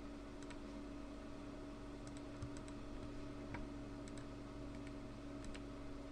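Computer mouse buttons clicking, about half a dozen quick clicks, several as close press-and-release pairs, over a steady low hum.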